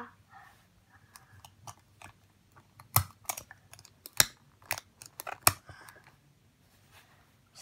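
Small plastic Paw Patrol toy pieces clicking and knocking as the Marshal figure and a toy vehicle are handled and pressed together on a tabletop: a scatter of short sharp clicks, the loudest from about three seconds in.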